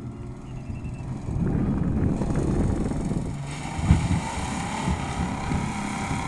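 1994 Ford Explorer's 4.0 L V6 with stock exhaust revving under load as it ploughs through deep mud, tyres churning and slinging mud. It gets louder about a second in, with a sharp thump about four seconds in.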